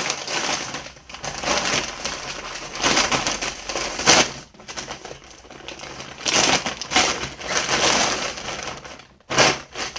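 Thin plastic packaging bag crinkling and rustling in irregular bursts as it is handled and pulled open.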